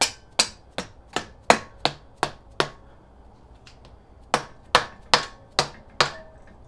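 Hammer tapping on top of a cylinder barrel of an air-cooled VW 1915cc engine. There are sharp, evenly spaced taps about two and a half a second: eight in a row, a short pause, then five more.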